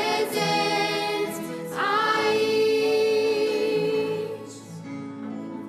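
A woman and three girls singing a Christian hymn together. Their voices hold one long note that dies down about four and a half seconds in, with softer sustained tones under it to the end.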